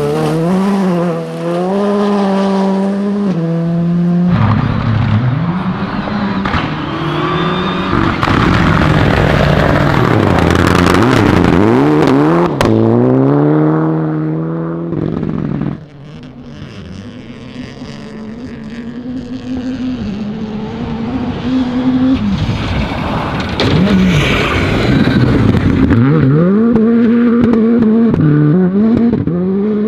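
Rally cars' engines revving hard, pitch rising and falling through gearshifts and lifts, with tyre noise, in several separate passes cut together.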